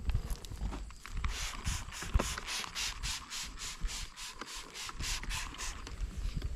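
Trigger spray bottle of Scent Killer Gold pumped rapidly, giving a quick run of short hissing sprays at about four a second. There is a sharp knock about two seconds in.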